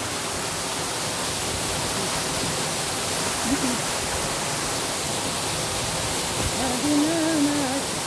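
Natural waterfall rushing, a steady, even hiss of falling water.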